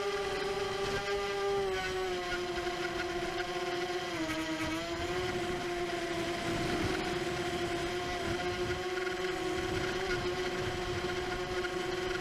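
Racing quadcopter's brushless motors and propellers whining at a steady pitch, which dips briefly about four seconds in as the motors slow, then holds a little lower.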